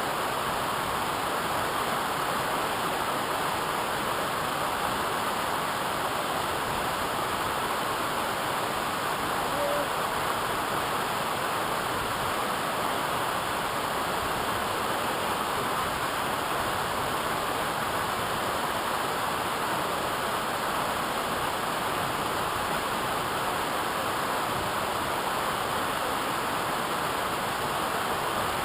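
Waterfall: a steady rush of falling water that does not let up.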